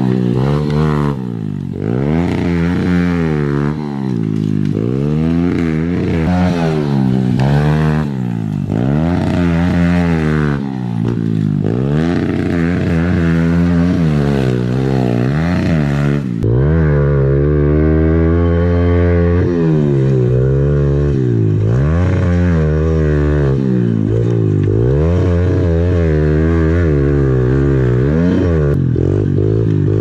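Small pit bike engine revving up and down over and over as it is ridden around a dirt track, the pitch rising and falling every second or two. About halfway through it becomes louder and steadier, heard close up from on the bike, with quicker, smaller swings in pitch.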